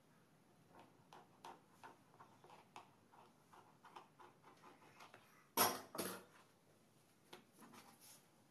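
Scissors snipping through a stack of brick pastry sheets: a run of faint crisp cuts, then two louder knocks close together a little past halfway.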